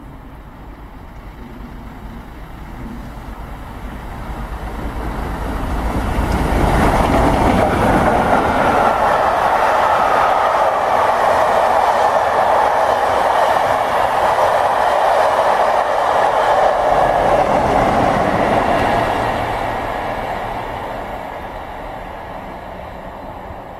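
Royal Scot class steam locomotive 46100 passing at speed with its train of coaches. The sound builds over the first several seconds as the locomotive approaches and passes, then the coaches roll by with steady loud wheel and rail noise for about twelve seconds before it fades away.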